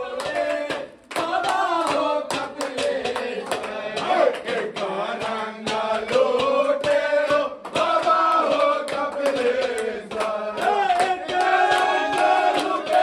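A group of men singing a Holi song together, with hand clapping.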